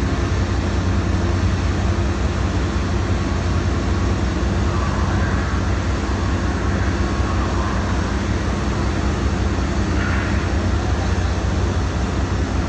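Steady diesel engine drone of a ship running, with a deep constant hum and a few even tones above it.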